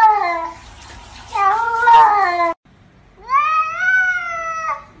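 Cats meowing: two wavering meows, then a long drawn-out meow that rises and holds, heard as "I love you".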